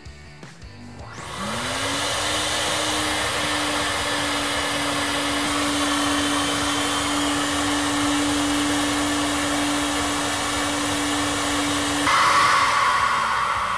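SuperFlow SF-1020 flow bench's blower motors spooling up about a second and a half in, then running steadily with a loud rush of air and a steady hum as the bench draws air through the intake port of a ported 12-valve Cummins cylinder head. About twelve seconds in the hum drops away and the rush briefly gets louder and brighter, then fades.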